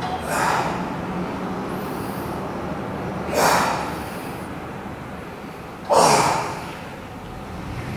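A man exhaling forcefully, three times, about one breath every two and a half to three seconds, one with each repetition of a chest fly on a weight machine.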